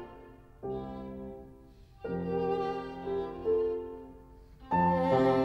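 Background music: bowed strings (violin and cello) playing slow, held notes in three phrases.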